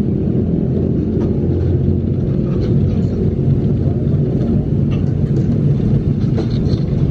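Steady, loud low rumble of background noise, with a few faint voices in the background.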